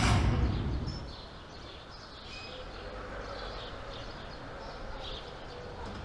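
Birds chirping in short, high calls over a steady outdoor background, after a whoosh that fades away over the first second.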